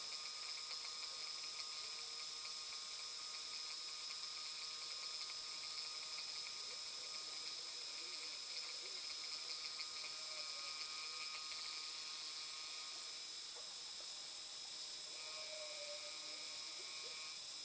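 Harbor Freight mini-mill spindle running with its end mill facing the end of a brass rod, a steady high-pitched whine of several tones over a hiss, played back fast-forwarded.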